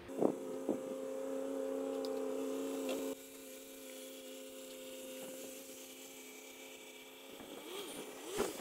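A click, then a steady hum of several pitches that drops sharply in level about three seconds in and carries on faintly.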